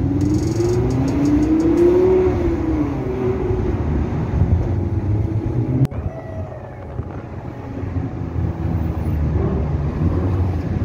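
Car engine running loud, its pitch rising and falling back over the first few seconds as it revs or drives past, then breaking off abruptly about six seconds in to quieter engine rumble.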